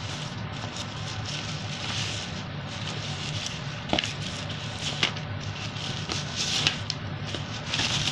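Crinkling and rustling of plastic packaging being handled, with a few sharp clicks about four and five seconds in, over a steady low hum.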